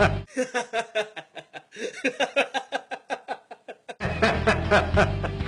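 A man laughing, a long run of rapid "ha" pulses about five a second, with the background music dropped out; the music comes back in about four seconds in.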